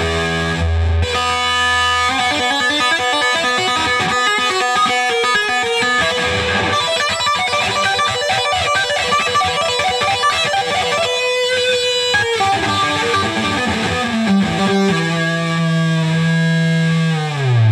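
Dean Razorback Lightning electric guitar played through an amp: fast single-note lead runs with tapped passages, ending on a long held low note whose pitch drops steeply near the end.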